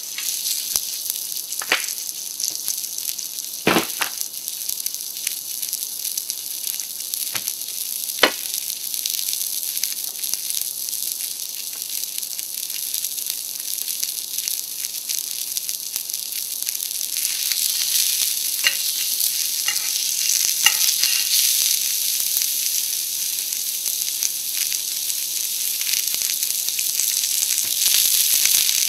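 Oil-coated venison loin sizzling steadily as it sears in a hot frying pan, the hiss growing somewhat louder later on. A few sharp clicks stand out over it.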